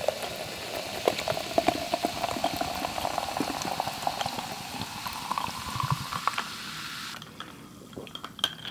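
Freshly poured bubly sparkling water fizzing in a glass mason jar: a steady hiss of bursting bubbles with many fine crackles, which drops away about seven seconds in.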